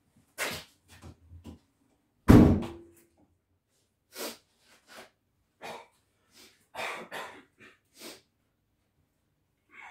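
A series of short knocks and thumps at irregular intervals, with one loud thump a little over two seconds in.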